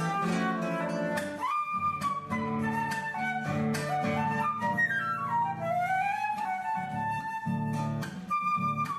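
Live acoustic music: a flute melody with sliding notes over strummed guitar chords.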